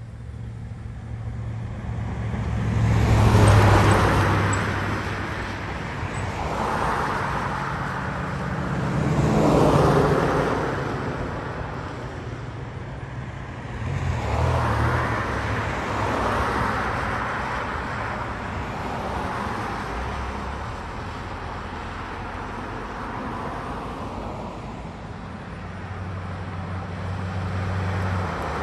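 Road traffic: several cars pass one after another, each swelling and fading over a few seconds, the loudest early on and about ten seconds in. A steady low hum runs underneath.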